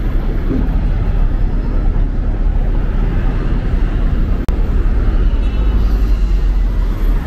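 Busy city street ambience, dominated by a steady low rumble of traffic and wind. It cuts out briefly with a click about four and a half seconds in.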